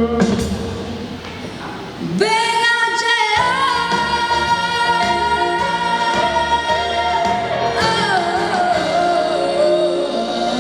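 A female solo singer comes in at about two seconds over backing music. She holds one long high note with vibrato for several seconds, then moves through a few lower notes near the end.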